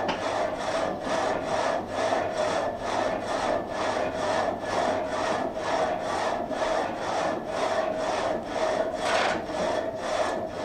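Water-powered vertical frame saw cutting through a log, its blade going up and down in an even rhythm of about three strokes a second.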